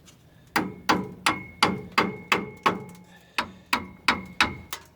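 A large hammer lightly tapping a new disc brake pad into the caliper, about three taps a second, each with a short metallic ring. There is a brief pause about halfway through.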